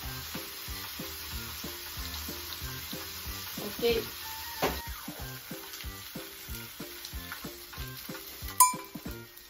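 Skewered chicken and green peppers sizzling steadily on a tabletop electric grill plate. A single sharp click near the end is the loudest sound.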